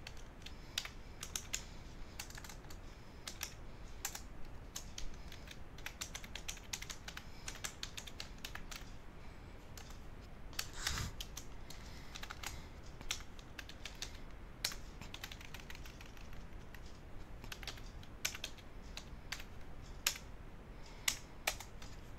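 Typing on a computer keyboard: a string of irregularly spaced keystroke clicks.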